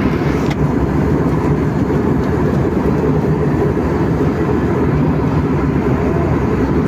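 Steady engine and airflow noise of a jet airliner in flight, heard inside the passenger cabin.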